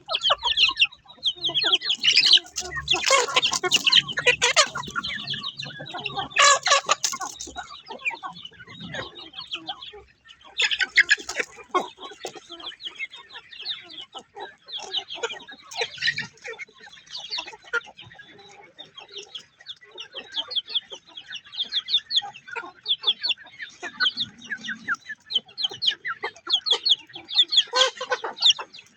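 Chickens, a hen with young chickens, clucking and peeping in many quick, high calls, with louder squawking bursts a few seconds in.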